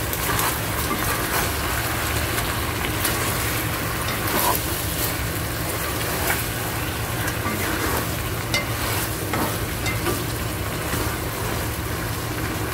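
Fish pieces, scallions and ginger sizzling in sauce in a granite-coated wok as they are stir-fried, with scattered clicks and scrapes of the stirring utensil against the pan.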